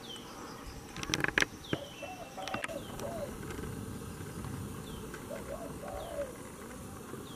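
Dove cooing from the trees in short groups of low arched notes, with another bird's short high falling chirps repeated about every second or so. A few sharp clicks of handling come about a second in.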